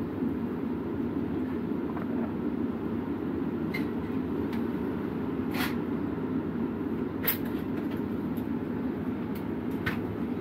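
Steady low running hum of a parked ambulance, with a few sharp clicks and knocks scattered through it.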